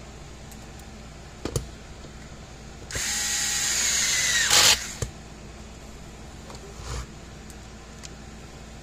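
Cordless drill-driver running for about two seconds and then winding down, driving a screw into the electric fence charger's plastic case. A few sharp clicks and knocks before and after it.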